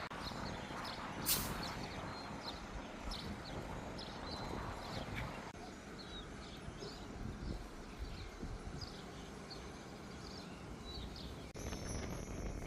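Outdoor ambience with small birds chirping again and again over a steady low rumble, and one sharp click about a second in.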